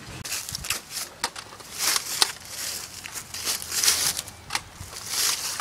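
Footsteps crunching through dry fallen leaves on a lawn, in irregular bursts, with a few sharp clicks among them.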